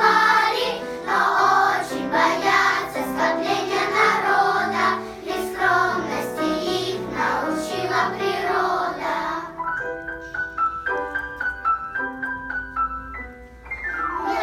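Children's choir singing a children's song with instrumental accompaniment; about two-thirds of the way through the voices stop and the accompaniment plays on alone in separate notes, ending in a quick rising run.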